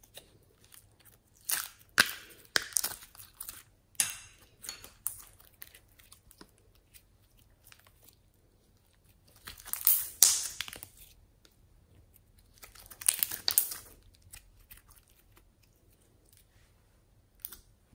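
Hands stretching, pulling and squishing glossy slime, making crackly, sticky popping sounds. The sounds come in several bunches, about two seconds in, around four seconds, around ten seconds and around thirteen seconds, with softer clicks and pops between them.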